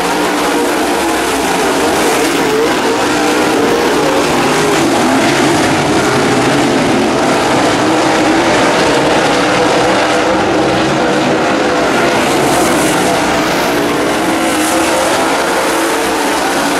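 Dirt late model race cars running laps on a dirt oval: a loud, steady drone of several V8 race engines at speed.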